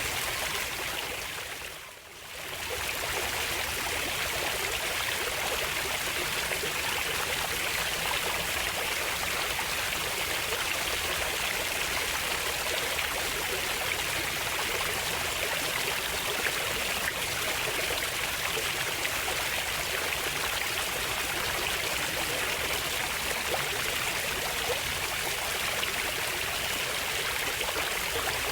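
Steady rushing of a flowing stream, which fades down briefly about two seconds in and comes straight back.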